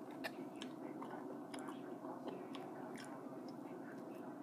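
A person chewing food close to the microphone: scattered wet clicks and smacks of the mouth, over a steady low background hum.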